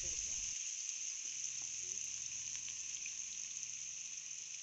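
Marinated chicken pieces frying in hot coconut oil: a steady sizzling hiss with a few faint crackles, slowly dying down.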